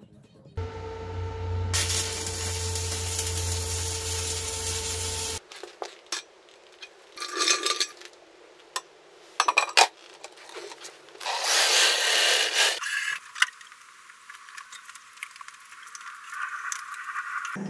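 Workshop tool and metal-handling sounds: a steady machine whir for about five seconds that stops abruptly, then scattered knocks, clanks and scrapes of steel parts being handled.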